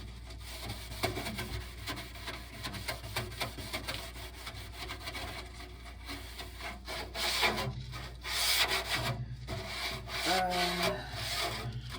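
Rubbing and scraping handling noises with scattered light knocks as things in a fridge are moved and wiped during cleaning, with a stronger stretch of rubbing about seven to nine seconds in.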